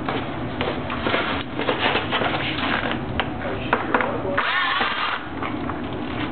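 Cordless drill running briefly with a whine about four seconds in, turning the screw that holds a double hung window's balance assembly in the jamb, amid clicks and knocks of handling the metal and vinyl parts.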